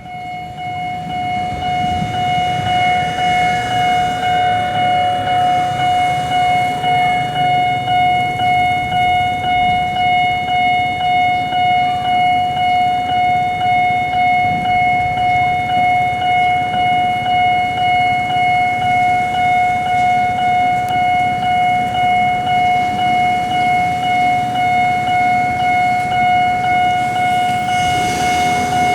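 Japanese railway level-crossing warning alarm ringing its repeated 'kan-kan' strikes at an even pace, one steady ringing pitch.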